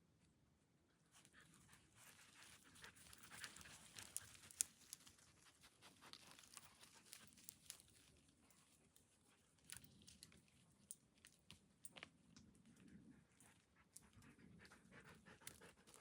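Husky panting close by, faint, with scattered small crackles and snaps of dry leaves and twigs underfoot.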